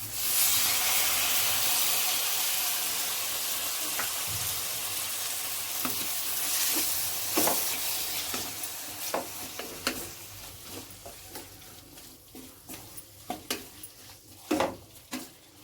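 Chopped tomatoes dropped into a pan of hot oil and fried onion masala: a loud sizzle that starts at once and slowly dies away, with a spoon clicking against the pan as the mixture is stirred.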